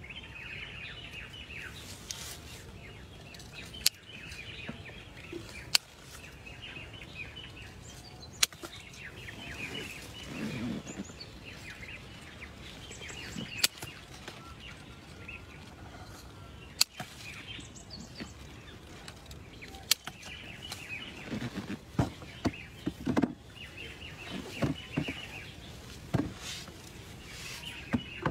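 Small birds chirping and twittering in the background, with sharp clicks every few seconds from pruning shears snipping fruit stems. In the last few seconds there is denser rustling and knocking as plants and fruit are handled.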